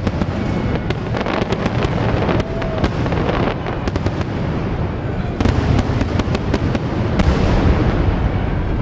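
Fireworks going off: quick runs of sharp crackling bangs over a continuous low rumble of booms.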